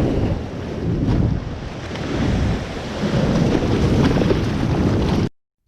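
Ocean surf surging against a rock ledge, with wind buffeting the microphone in a loud rumble that rises and falls; it cuts off suddenly about five seconds in.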